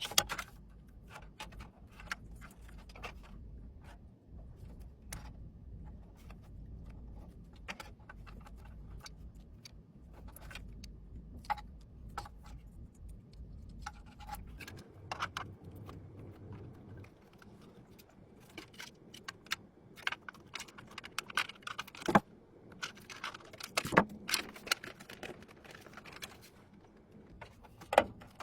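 Computer parts being handled and fitted together during a PC build: irregular small clicks, clinks and taps of plastic and metal, with a couple of sharper clicks near the end. A low hum underneath stops about halfway through.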